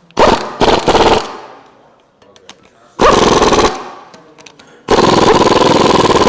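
Pneumatic impact wrench driving Allen bolts down, in rapid hammering bursts: three short bursts in the first second, one of under a second about three seconds in, and a longer run of about two seconds from about five seconds in.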